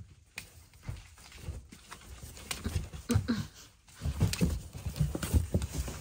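Kittens scuffling about as they play: a run of irregular soft thumps and rustles, sparse at first and busier in the second half.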